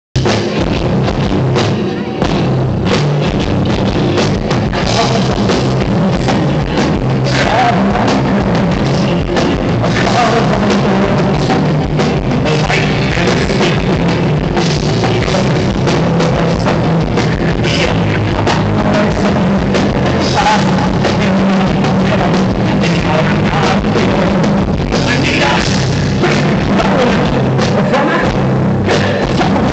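Live rock band playing loudly, with a prominent drum kit, steady and continuous.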